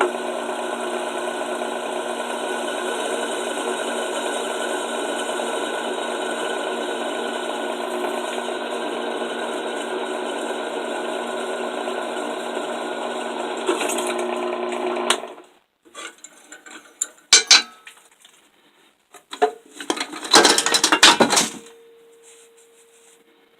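Drill press motor running steadily while drilling hinge holes in 1-inch steel flat bar, then switched off about two-thirds of the way through. After it stops come a few sharp clicks and a brief clatter of metal being handled.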